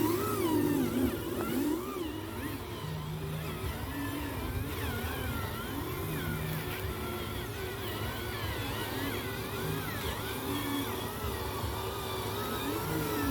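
Small electric motors of radio-controlled construction vehicles whining, their pitch rising and falling again and again as the throttle changes.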